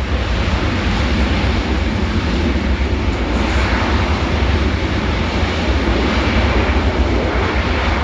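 C-17 Globemaster III's four turbofan engines running loud in reverse thrust, a heavy, steady jet rumble with a faint whine over it in the second half.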